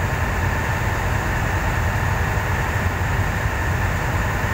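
Small boat's engine running steadily under way: a constant low drone with a faint steady whine above it.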